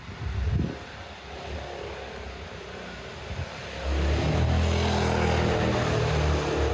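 A motor vehicle's engine on the street, close by. It surges briefly about half a second in, then runs with a steady low engine note that grows loud about four seconds in as the vehicle comes past.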